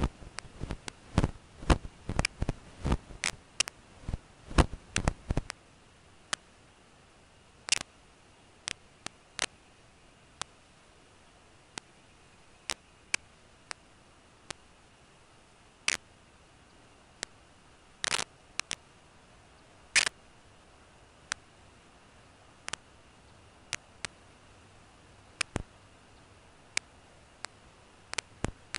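Sharp dry clicks and ticks: a rapid irregular cluster for the first five seconds or so, then single clicks every second or two, over a faint steady hiss.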